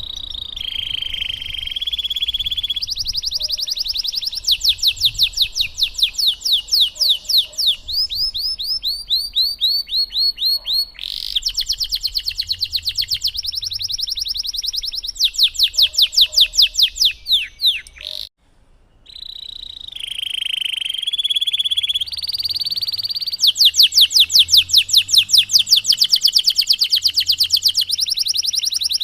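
Domestic canary singing a long, continuous song of fast rolling trills: runs of rapidly repeated high notes, each run changing to a new phrase every second or few. The song breaks off briefly about two-thirds of the way through, then resumes.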